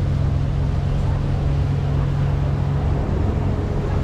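Boat engine running steadily, heard from on board as a low rumble. A deeper steady hum over it eases about three seconds in.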